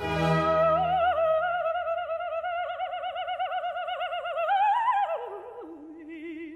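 Operatic singing: one voice holds a long high note with a wide vibrato, swells and climbs briefly about four and a half seconds in, then drops to a lower held note near the end.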